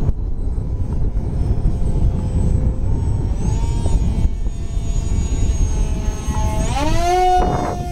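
Electric motor and propeller of a depron RC parkjet in flight, its whine rising in pitch twice as the throttle is opened, the second time sharply near the end, over wind rumbling on the microphone.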